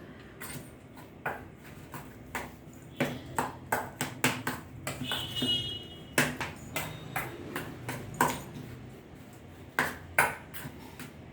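Irregular clinks and taps of kitchen utensils against metal vessels, with one short ringing ping about five seconds in.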